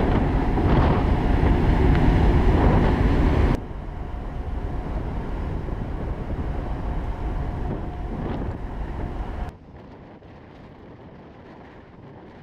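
Wind buffeting the microphone on a car ferry's open deck over the steady low rumble of the ship underway. It drops suddenly to a quieter rumble with a faint hum about three and a half seconds in, and drops again to a soft sea-and-engine hush well before the end.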